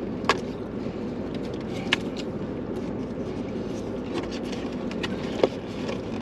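Steady low hum inside a parked car, with a few sharp clicks and light scrapes of plastic forks against cardboard takeout boxes.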